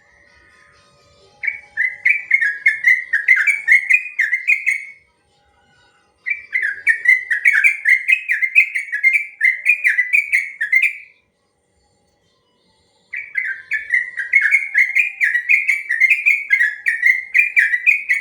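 Yellow-vented bulbul (trucukan) singing its long rolling song: three phrases of several seconds each, made of quick repeated bubbling notes, separated by short pauses.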